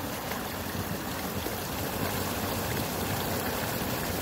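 Seasonal stream running full, swollen with rain and snowmelt, its water rushing steadily over rocks in a small cascade.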